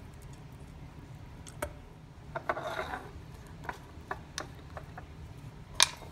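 Hands squeezing a lemon wedge over a glass and working it in: a brief wet rubbing about two and a half seconds in, then scattered light clicks and taps, the sharpest near the end, over a low hum.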